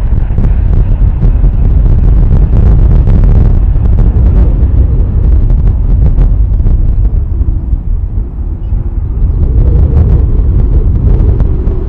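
Gusty wind buffeting the microphone with a heavy, fluctuating rumble. Beneath it are the jet engines of a Boeing 737-800 taxiing at idle after landing.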